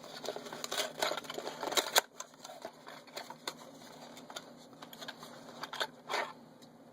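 Small clicks and rustles of a stock CPU cooler being handled out of its box and packaging. They are densest in the first two seconds, with a sharper click about two seconds in, then turn sparse.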